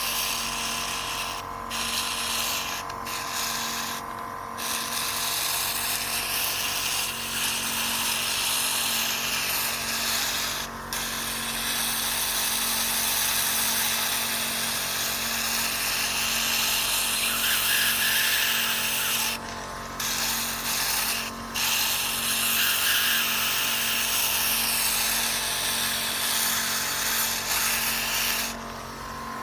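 Suction pump drawing water and air through a suction tip held at the water surface of a Langmuir-Blodgett trough, aspirating dirt off the surface. It makes a continuous hissing suction noise over a low steady hum, cutting out briefly several times.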